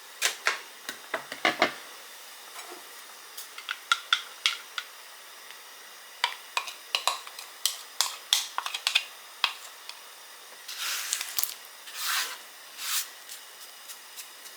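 Kitchen clatter: dishes, pots and utensils clinking and knocking in quick, irregular taps, with a few short hissing bursts near the end.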